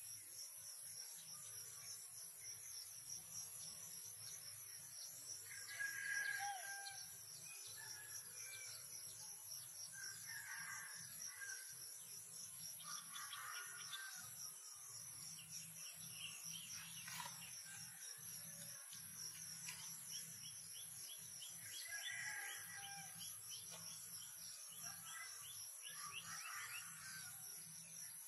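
Quiet outdoor ambience: a steady high insect drone with scattered short bird chirps.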